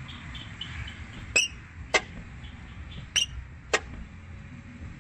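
Car door being swung back and forth on its freshly lubricated hinges: twice, a short high squeak followed by a sharp click, the last of the hinge squeak not yet worked out.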